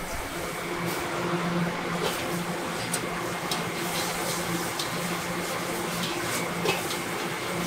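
Cabbage sizzling in a hot wok over a gas burner, with a steady low hum underneath. Metal tongs click against the wok several times as the food is tossed.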